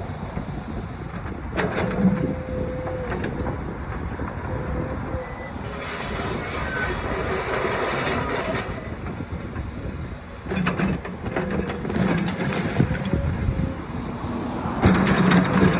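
Backhoe working: its engine runs steadily under a thin whine, with several knocks and crunches of the cinder block wall being broken. A hissing rush about six seconds in lasts roughly three seconds.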